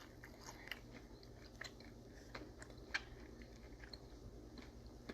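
Faint chewing of a mouthful of food, with scattered small mouth clicks and smacks, the clearest about three seconds in, over a low steady hum.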